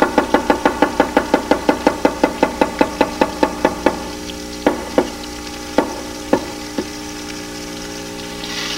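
Kitchen knife chopping vegetables on a wooden cutting board. Quick, even strokes come about five a second, then slow to a few scattered cuts about four seconds in.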